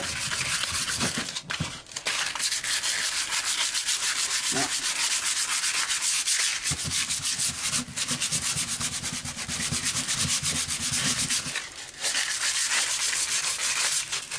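Sandpaper rubbed by hand in quick back-and-forth strokes over the shiny finish of a graphite hockey stick blade, scuffing it so a liquid tape coating will bond. The scratching pauses briefly about two seconds in and again near twelve seconds.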